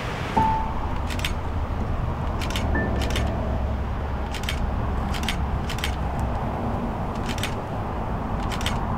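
Single-lens reflex camera shutter firing again and again at uneven intervals, each shot a sharp double click. A few short bird chirps come in near the start and about three seconds in, over a low rumble that fades out about six seconds in.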